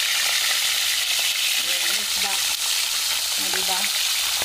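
Espada (hairtail) fish pieces frying in very hot cooking oil in a stainless steel pan: a steady, dense sizzle with small crackles throughout.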